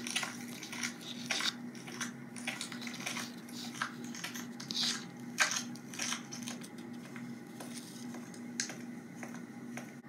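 Scattered clicks, taps and scrapes of objects being handled, at irregular intervals, over a steady low hum.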